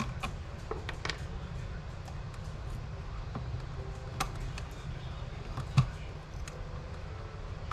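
Scattered small clicks and knocks of hands working a wall light-switch box and its wires, over a steady low hum. The loudest knock comes about six seconds in.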